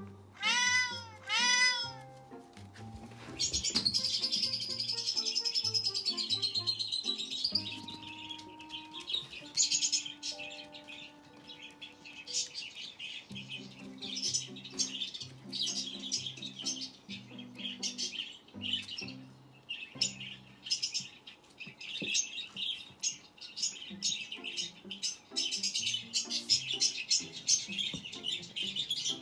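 A cat meows twice, then birds chirp and twitter in quick high bursts through most of the rest, over soft background music with low sustained notes.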